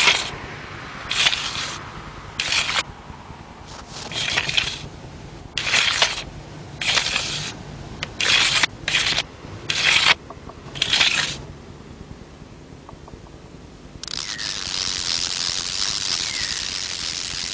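About ten short, bright scraping rasps, each under a second, spaced unevenly over the first ten seconds or so. After a quieter gap, a steady hiss sets in about two-thirds of the way through, with a few faint squeaky glides in it.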